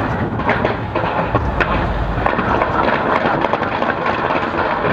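Fireworks going off in rapid succession: a dense run of sharp cracks and pops over a continuous rumble, with a deeper boom about a second and a half in.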